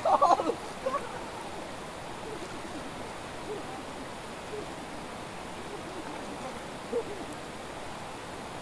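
Steady rushing of a fast, shallow river flowing over stones. A brief pitched call sounds right at the start, with two faint short ones about a second in and near the end.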